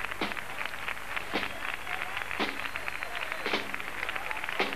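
Large crowd clapping in a dense, continuous patter, with a louder sharp beat about once a second and a few faint voices.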